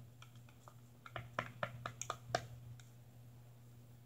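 Light, irregular clicks and taps of a thin stirring stick against a bowl as slime ingredients are mixed, thickest between about one and two and a half seconds in, over a low steady hum.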